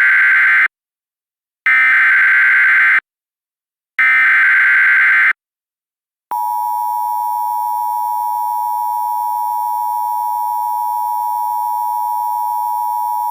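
Emergency Alert System SAME header: three short warbling data bursts, the first already under way, then the steady two-tone EAS attention signal starting about six seconds in.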